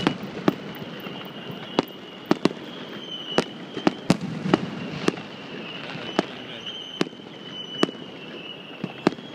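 Aerial fireworks bursting in sharp bangs at irregular intervals, about a dozen, over a steady background rumble and crackle, with a faint high whine that wavers in pitch.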